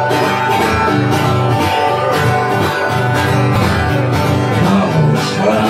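Live folk band playing an upbeat song on strummed acoustic string instruments with a steady beat, loud in a crowded room.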